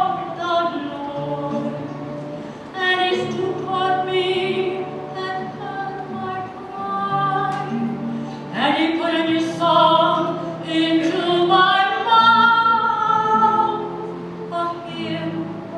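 Church music from a sung part of the Mass: a voice or voices singing long held notes over sustained low accompaniment notes.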